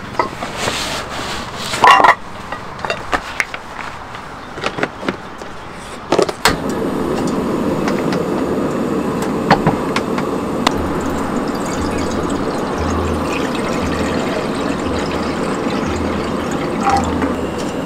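Rustling and knocks of gear being handled, then a sharp click about six seconds in as a portable cassette gas stove is lit, followed by the burner's steady hiss. Near the end water is poured from a bottle into the pan on the stove.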